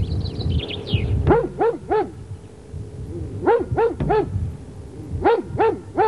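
A large Tornjak livestock guardian dog barking deeply in three runs of three quick barks, a second or more apart.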